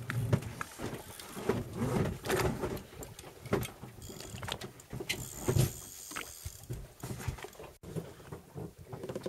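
Wind buffeting the microphone on a small boat, with clicks and knocks of fishing tackle as jigging reels are cranked against heavily loaded rods, and a high whir for about two seconds midway. The sound drops out for an instant near the end.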